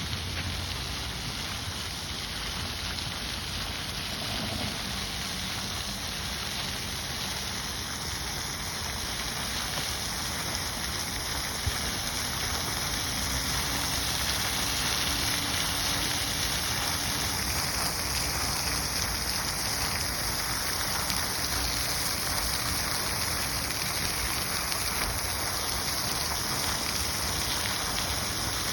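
Running fountain: water splashing and spattering steadily into its basin, growing a little louder about halfway through.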